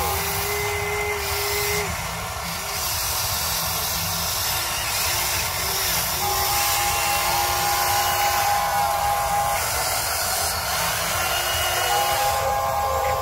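Huina 580 RC excavator's motors whining as the boom, arm and bucket move, the whine starting, stopping and shifting pitch with each movement, over a steady hiss.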